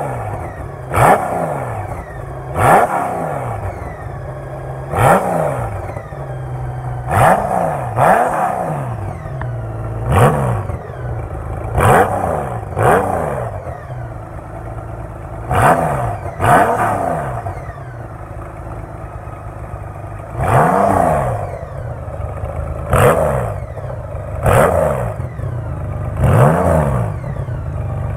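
Trike engine idling through an MMD performance exhaust, blipped in about fourteen short revs, one every one to three seconds, each rising quickly and dropping back to idle.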